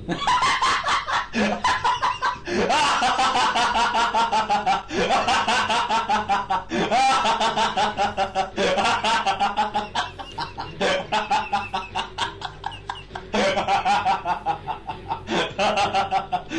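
Comedy laughing sound effect: a cackling laugh in quick pulses, repeated in bursts that each start about every two seconds, cutting in suddenly.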